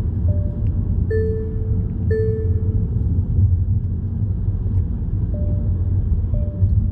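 Car driving on a city road, heard inside the cabin: a steady low road and engine rumble. Short electronic beeps repeat about once a second over it, stopping about three seconds in and starting again near the end.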